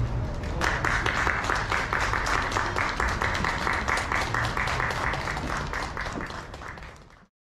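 A small crowd of onlookers applauding with a dense patter of hand claps. It starts about half a second in and fades out near the end.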